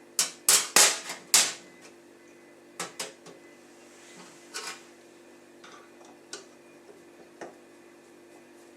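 Hard clicks and clinks of tap parts and tools being handled as a tap is reassembled after a washer change: a quick run of about five sharp clicks in the first second and a half, then a few scattered ones.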